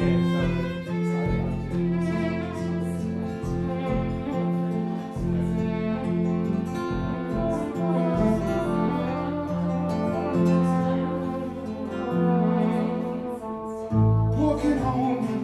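Live acoustic band playing an instrumental break: a violin melody with flugelhorn over plucked double bass and acoustic guitar. Near the end the bass and guitar come in louder.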